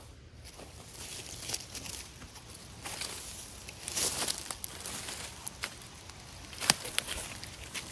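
Dry fallen leaves crunching and rustling underfoot in irregular steps, with a few sharp snaps near the end.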